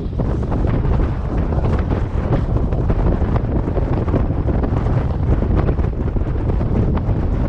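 Strong wind buffeting the microphone on a beach: a loud, steady low rumble that rises and falls with the gusts.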